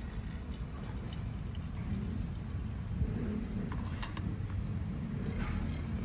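Battery solution poured from a bottle into the cells of a lead-acid battery, topping up an electrolyte level that sat at the lower mark.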